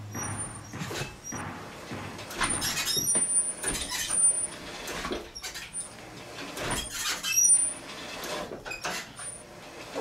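Front brakes of a home-built reverse trike dragging and rubbing as the trike is rolled and braked, with irregular swells of scraping noise, a few knocks and short high squeaks. The brakes are a little sticky and rub.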